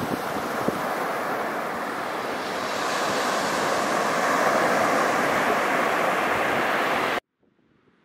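Surf washing onto a sandy beach: an even rushing noise with some wind on the microphone, swelling about three seconds in and cutting off suddenly near the end.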